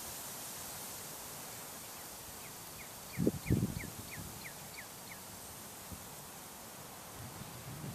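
Wind moving through trees and grass, a steady rushing, with a bird singing a run of about nine short falling notes, about three a second, through the middle. Two brief low thumps, the loudest sounds, come just past three seconds in.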